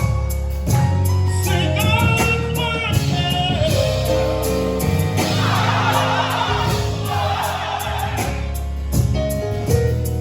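Live gospel music: voices singing together in a choir over a band with steady bass notes.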